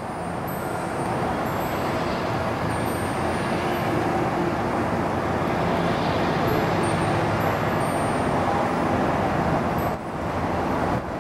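Storm wind ahead of an approaching thunderstorm, a steady rushing that swells over the first couple of seconds and dips briefly near the end.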